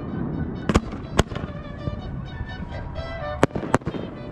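Fireworks shells bursting: four sharp bangs in two pairs, one pair about a second in and one near the end. Mariachi music plays underneath.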